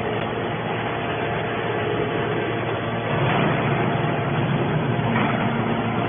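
Hydraulic scrap metal baler running: a steady mechanical drone with a few held tones, growing a little louder about three seconds in.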